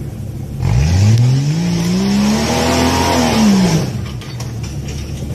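A Jeep's engine revving hard on a steep rock climb. The revs rise over about two seconds, then fall away and cut off as the throttle comes off while the vehicle tips backward.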